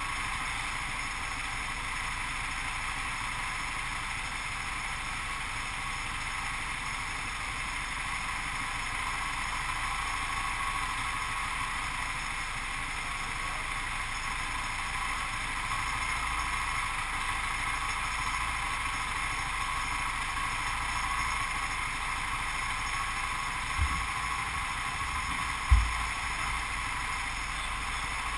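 Go-kart engine running steadily, with two short low thumps near the end.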